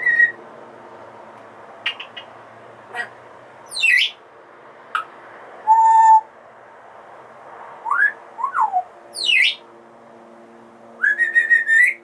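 African grey parrot whistling and clicking: a short whistle, a few sharp clicks, two whistles that sweep down in pitch, a held steady note about halfway, and a quick run of short level notes near the end.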